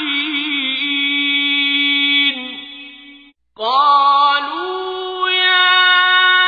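Melodic Quran recitation (tajweed) by a solo reciter. A long held vowel with a slight waver settles and fades out about three seconds in, ending the verse. After a brief pause the next verse begins, its note rising and then held long and steady.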